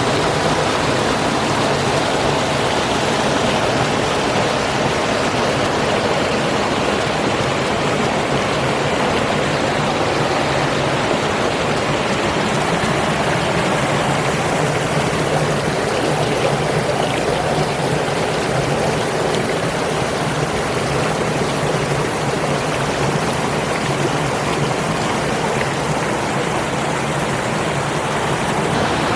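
Steady rush and splash of a cascading waterfall running high after heavy rain.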